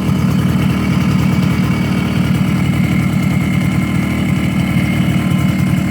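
Suzuki AX100's single-cylinder two-stroke engine idling steadily. It runs clean, without the knocking it had when the crankshaft pinion sat without its key.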